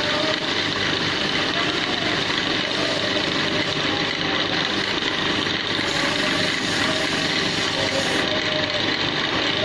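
Woodworking lathe running steadily with a continuous mechanical hum.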